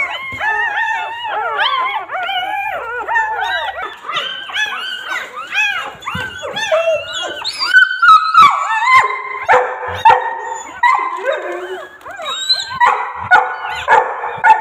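A litter of newborn Labrador puppies crying together: a rapid, overlapping string of short, high, arching squeals and whimpers, growing louder and rougher in the second half.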